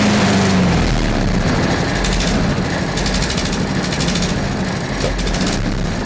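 Briggs & Stratton 190cc single-cylinder engine on a Craftsman 6.5 HP self-propelled push mower, running steadily just after being pull-started.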